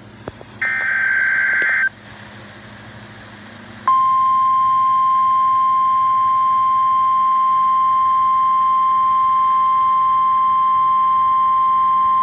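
Emergency Alert System broadcast on NOAA Weather Radio: a burst of about a second of buzzy, warbling SAME digital header data, then, about four seconds in, the steady 1050 Hz weather radio warning alarm tone, which holds on to the end. A low hum and static from the radio reception sits underneath.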